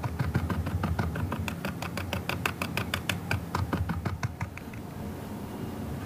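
Stiff bristle brush stippling acrylic paint onto a canvas panel: quick light taps, about seven a second, that stop about four and a half seconds in.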